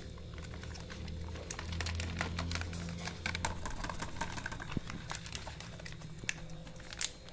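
Bull terrier eating dry kibble from a plastic bowl: a quick, uneven run of crunches and clicks as the pieces are chewed and knock against the bowl.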